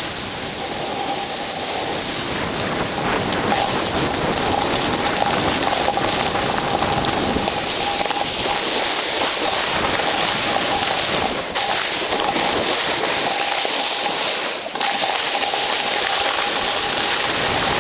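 Steady hissing rush of a rider sliding fast down a snowy slope, the edges scraping over packed, tracked snow, mixed with wind buffeting the microphone. A thin steady tone runs underneath, and the rush dips briefly twice in the second half.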